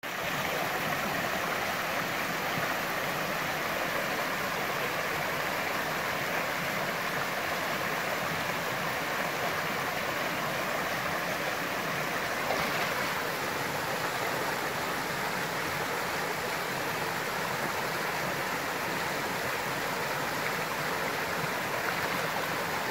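Shallow mountain creek rushing over rocks and small cascades, a steady, even water noise.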